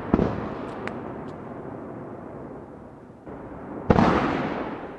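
Aerial firework shells bursting at close range: a sharp bang just after the start, a few crackling pops and a long rolling echo, then a dull thud and another loud boom near the end that rolls away.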